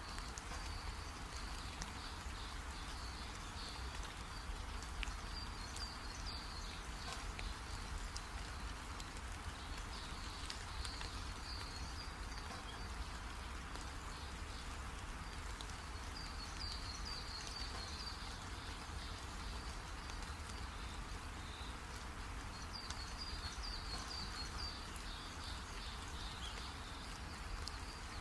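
Steady low hum and hiss, with short bouts of high chirping every few seconds.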